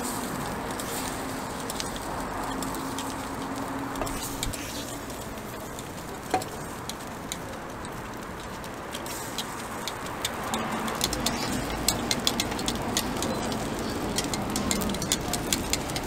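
Metal picks clicking and scraping against a cast-iron takoyaki pan as the balls are turned in their wells, the quick ticks coming thick in the second half, over a steady murmur of background noise.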